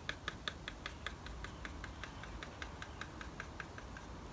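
Quick, even tapping on a small plastic spray-can cap used as a sieve shaker, about five taps a second, knocking fine dried soil out through a stocking stretched over it. The taps grow fainter after about two seconds.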